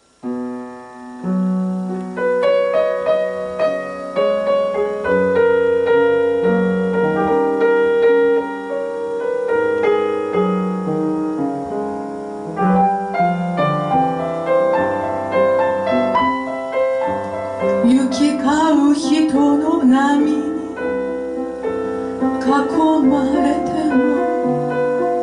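Slow chanson played on piano, with sustained chords and a melody line. About eighteen seconds in, a woman's singing voice with a wavering pitch joins the piano for two short phrases.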